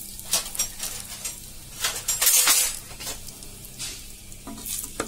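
Whole spices such as bay leaf and cinnamon sizzling in hot oil and ghee in a pressure cooker, with scattered crackles and pops and a louder burst of sizzle about two seconds in.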